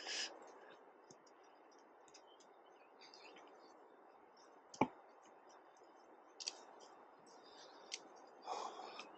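Faint footsteps and trekking-pole tips clicking and knocking on a stony trail, a scatter of light clicks with one sharper knock about halfway through.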